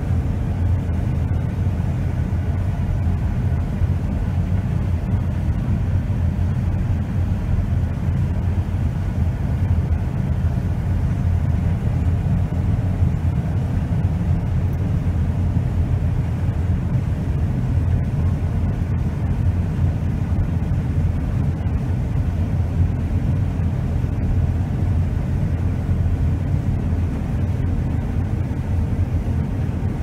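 John Deere S690 combine running steadily while harvesting wheat: a constant low rumble with a faint steady hum above it.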